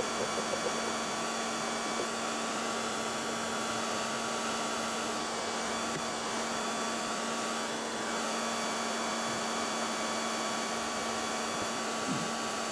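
Handheld hair dryer running steadily, a constant rush of air with a fixed motor whine, heating the fender panel so the paint doesn't crack and the metal is more pliable for paintless dent repair.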